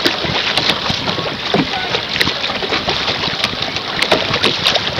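Water rushing and splashing against the bow of a canoe moving through choppy water: a steady wash with many small, irregular slaps and splashes.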